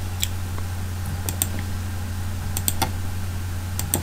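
Computer mouse clicking in about four short clusters of sharp clicks, roughly one cluster a second, over a steady low hum.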